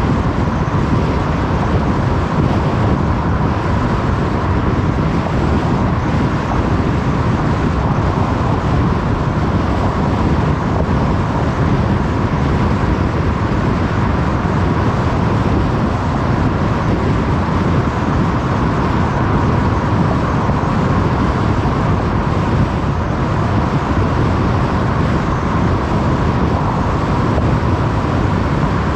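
Steady road noise of a car cruising on a motorway: an even rush of tyre and wind noise, strongest in the low range, with a faint steady tone above it and no changes.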